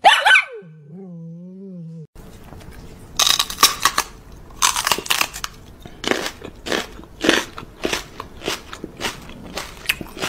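A sharp twang and a short, wavering low hum as a dachshund paws a spring doorstop. Then a long run of crisp, loud crunching chews, about two to three a second.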